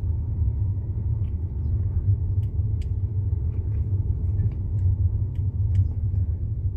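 Steady low rumble of a moving car heard from inside the cabin, with a few faint ticks.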